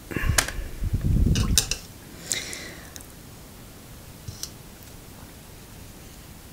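Brief clatter of small hard objects handled on a tabletop: several sharp clicks and dull knocks in the first two and a half seconds, then two small clicks a little after four seconds, over a steady low hiss.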